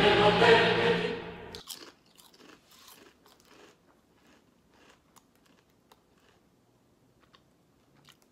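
A loud, dense sound that cuts off abruptly about a second and a half in, then crisp, crackly crunches of a cricket-flour tortilla-style chip being chewed, irregular and fading toward the end.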